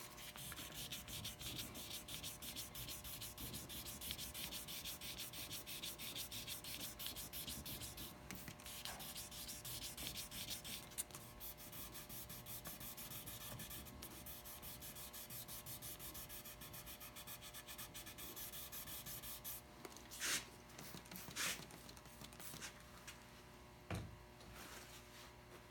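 Fine 3000-grit wet sandpaper on a sanding block rubbing back and forth over the wet varnished hull of a wooden half model, in quick, even strokes: the finish wet sanding of the varnish toward a smooth, high-gloss surface. The strokes stop about 20 seconds in, followed by a few separate scuffs and a knock.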